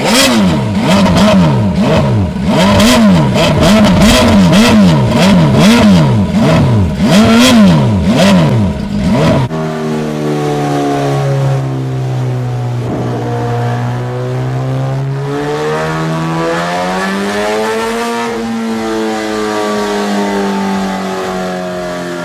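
MV Agusta F4's 998 cc inline-four engine, revved sharply about eight times in quick blips. After a cut about halfway through, it runs at a steadier, lower note that sags and then climbs again near the end.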